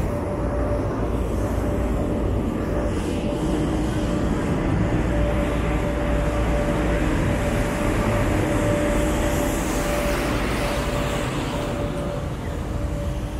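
Street traffic going by over a steady hum, with one passing vehicle swelling loudest about ten seconds in and then fading.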